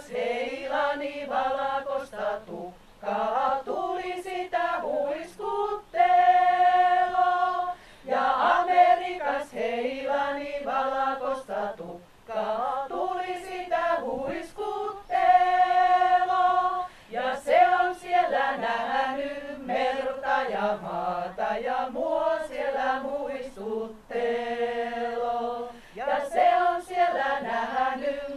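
Women's folk-song ensemble singing a cappella in several parts. The phrases are separated by short breaths, with three long held chords at about six, fifteen and twenty-four seconds in.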